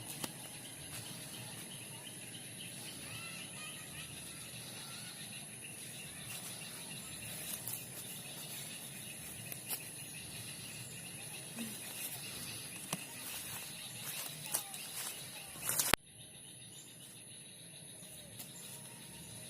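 Outdoor rural ambience: a steady high insect drone with faint bird chirps, and scattered clicks and knocks. About three quarters of the way in, a short loud noisy burst cuts off abruptly and the background drops quieter.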